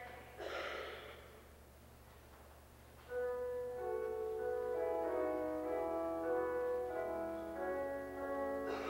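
Keyboard instrument playing held chords, starting about three seconds in after a short pause; a brief noise comes just before a second in.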